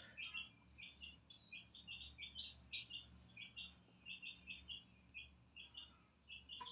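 Domestic chicks peeping: faint, short, high-pitched peeps repeated a couple of times a second.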